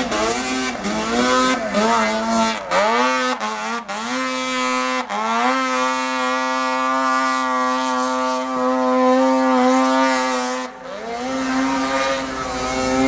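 Arctic Cat snowmobile engine at full throttle on a steep climb, revving up and down in surges as the track grabs and spins, then held at high revs for several seconds. Near the end the revs drop suddenly and pick up again.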